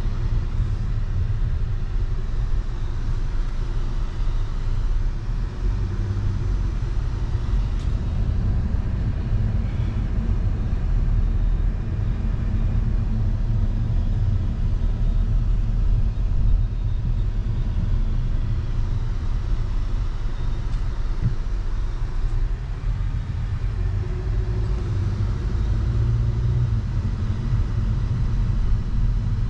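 Steady low rumble of a car driving along, road and engine noise.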